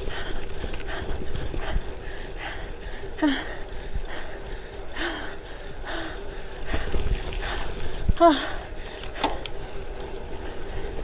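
Bicycle riding noise, with wind rumbling on the microphone and tyre noise, under a cyclist's hard, rapid breathing. Four short voiced gasps stand out, about three, five, six and eight seconds in.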